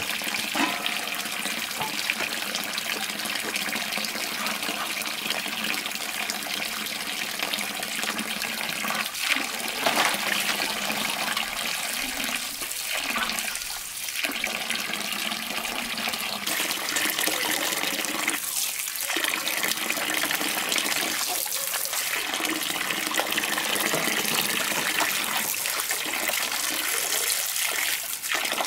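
Steady stream of water pouring from a pipe spout into a metal basin, splashing onto water and shells, while hands rinse freshwater mussels and snails in the basin.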